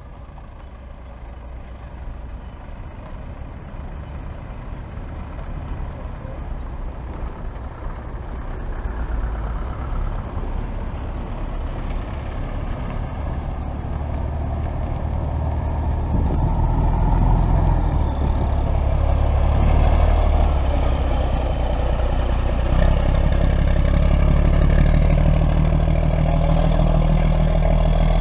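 Diesel engine of a yellow city bus, growing steadily louder as the bus draws up close on a rough dirt road, its low rumble loudest in the last ten seconds.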